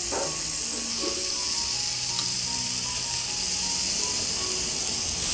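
Raw chicken satay skewers sizzling on a hot, margarine-greased grill pan as more skewers are laid on, a steady hiss. Soft background music plays under it.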